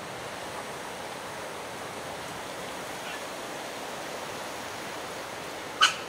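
Steady outdoor background hiss, with one short, sharp bird call near the end.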